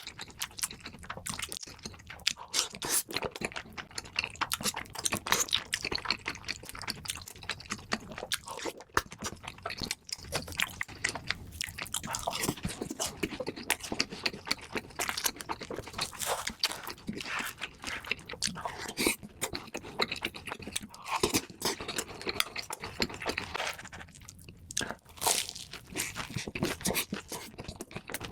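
A person chewing and crunching crisp food close to the microphone, with dense, irregular crackles throughout.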